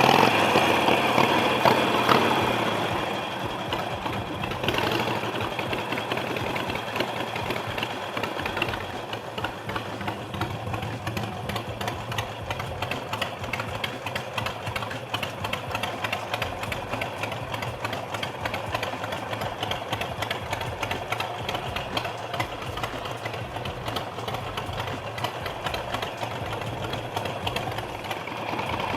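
Motorcycle engine idling with a fast, steady, uneven beat, a little louder for the first couple of seconds before settling.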